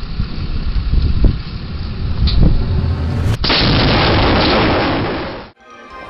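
Strong wind buffeting the microphone: a heavy rumble with thumps, then a harder steady rush of noise from about three and a half seconds in that cuts off abruptly near the end.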